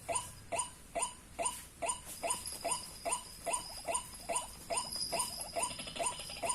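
White-breasted waterhen's 'ruak-ruak' call: the same short, downward-bending croaking note repeated evenly, a little over twice a second, without a break. A thin steady high tone runs behind it, dropping out for a while and coming back.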